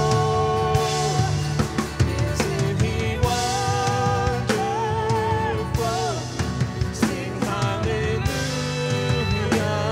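Live worship band playing a song: drum kit with cymbal strikes keeping a steady beat under a sustained low bass, with singing on top.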